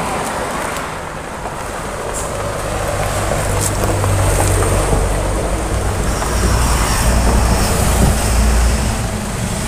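A vehicle engine running, a low rumble that grows louder about three seconds in and then holds steady.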